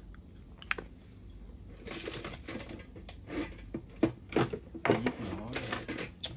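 Irregular small clicks and rustling from hands handling metal lighters and price tags on a table, beginning with one sharp click and growing busier about two seconds in.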